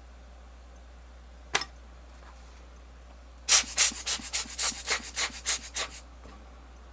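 A single short scrape, then a quick run of about ten rubbing strokes, some four a second, from small hand work on the watch case.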